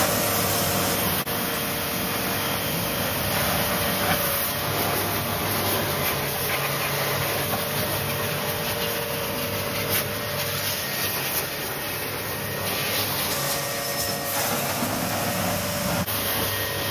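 Starq W3 2100-watt electric pressure washer running steadily, its high-pressure water jet hissing as it blasts dirt off a car tyre, with a low steady hum from the pump motor underneath.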